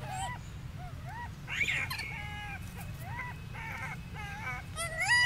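Baby rhesus macaque calling: a run of short, high coos and squeaks, each rising then falling in pitch, about three a second. A louder rising squeal comes near the end.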